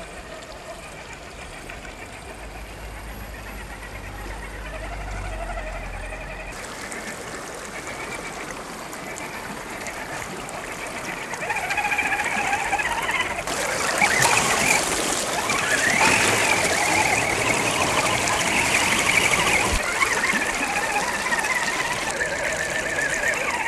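1/10-scale RC rock bouncer's electric motor (Hobbywing AXE540 brushless) and Wraith transmission whining, the pitch wavering up and down with the throttle. From about halfway through, the car ploughs through a fast stream and loud splashing and rushing water join the whine.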